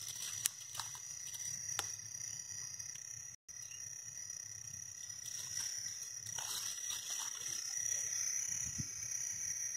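A steady, high-pitched chorus of calling insects or frogs in marshy grass, with a few faint clicks and rustles from handling.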